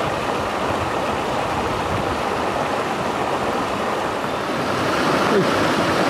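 Mountain stream rushing over rocks, a steady even rush of water that gets a little louder near the end.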